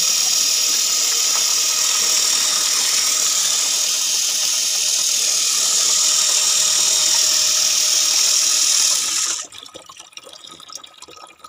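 Water from a homemade PVC-pipe pump gushing out of its outlet and splashing into a plastic tub, with the pump's small geared DC motor running steadily. Both stop suddenly about nine seconds in as the pump is switched off, leaving a few faint clicks.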